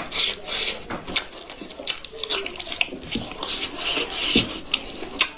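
Close-up eating sounds: wet chewing and lip smacking over a mouthful of rice and smoked pork, with many short sharp clicks.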